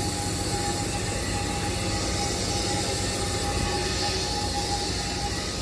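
Outdoor heat pump units running together: a steady rush of condenser fans over a constant low compressor hum, with a steady higher tone running through it.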